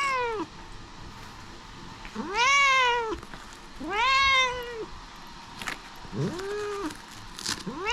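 Domestic cat meowing over and over: a run of drawn-out meows about one every second and a half, each rising and then falling in pitch.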